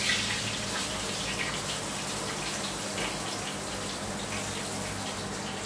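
Oil sizzling steadily in a frying pan as a Moroccan flatbread (rghaifa) fries, with a few faint clicks of the spatula turning it.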